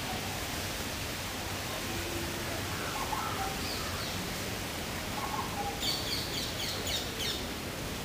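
Outdoor ambience: a steady hiss of background noise with faint bird calls, and a quick run of high chirps about six seconds in.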